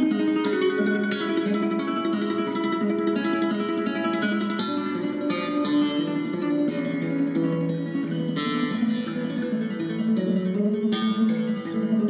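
Background music: plucked acoustic guitar playing a quick, continuous run of notes over chords.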